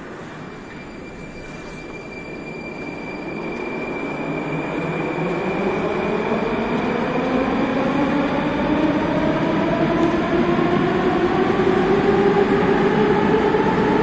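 Moscow Metro train's electric traction motors whining over the rumble of the train, the whine rising steadily in pitch and getting louder as the train accelerates.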